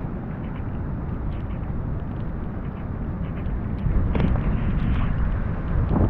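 Wind and heavy rain on a GoPro microphone: a steady low rumble with faint ticks of raindrops striking the camera. It grows louder about four seconds in.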